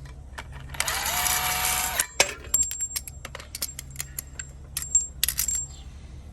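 A hissing burst about a second long, then a run of sharp metallic clinks and taps as steel suspension parts and tools are handled, over a steady low hum.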